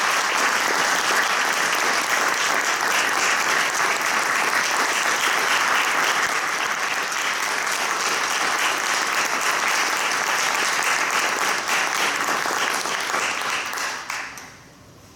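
A room of people applauding steadily, the clapping dying away near the end.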